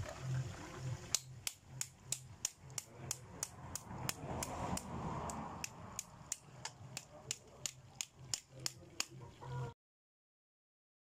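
A steady series of sharp knocks, about three a second, that stops abruptly near the end.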